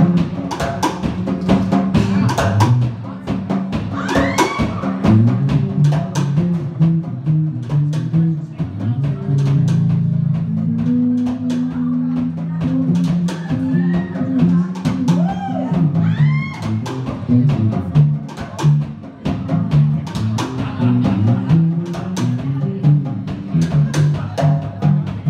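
Live band playing: an electric bass line under guitar, with a drum struck with sticks in a steady, busy rhythm.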